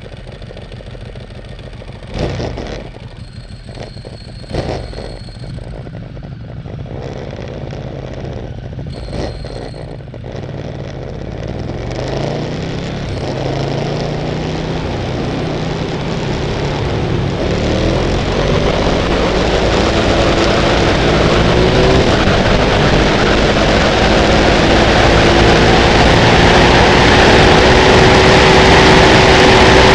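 Sport bike engine accelerating through the gears, its pitch rising and stepping with each shift, heard from a camera mounted low on the motorcycle, with wind and road noise building as speed climbs. Two short knocks near the start.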